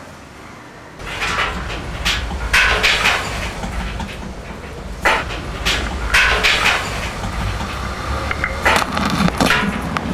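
Mechanical rumble with irregular clattering, scraping strokes every second or two, starting about a second in.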